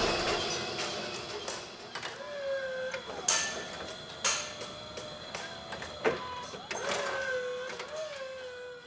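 Closing music with recurring gliding tones and a few sharp clicks, fading out.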